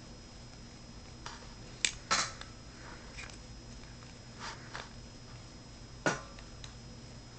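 Scattered light clicks and clinks of hand tools and small metal parts being handled while motor mount screws are tightened, over a faint steady hum.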